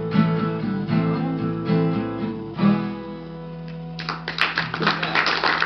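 Acoustic guitar fingerpicked, ending on a final strummed chord that rings out and fades. About four seconds in, the audience breaks into applause.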